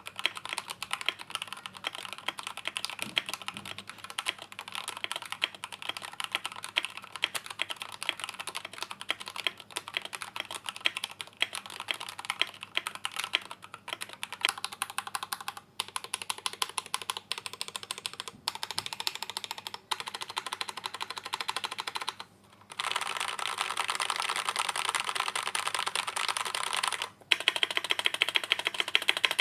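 Fast, continuous typing on an Akko MOD001 custom TKL keyboard with stock, unlubed JWK Black linear switches and ASA-profile keycaps: a rapid stream of key clacks that breaks off briefly a few times and gets denser and louder near the end.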